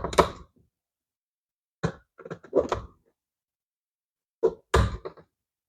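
Three short clusters of clicks and knocks from a Phillips screwdriver working the terminal screws on a plastic sprinkler control panel, loosening them one after another.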